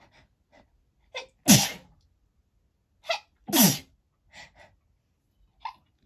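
A woman sneezing twice, each sneeze brought on by a feather tickling her nose and preceded by a quick, sharp intake of breath. Another sharp breath in comes near the end as the next sneeze builds.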